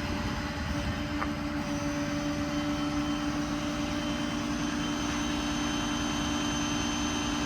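Ford 6.7 Power Stroke diesel running with the PTO engaged, giving a steady hum with a constant whine from the PTO-driven hydraulic system, and a faint click about a second in.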